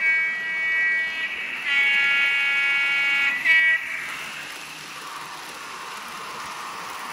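Model diesel locomotive horn from a sound-fitted N gauge train, sounded in three blasts: two long ones and a short last one at a different pitch. Then a steady rolling noise as the model train runs past.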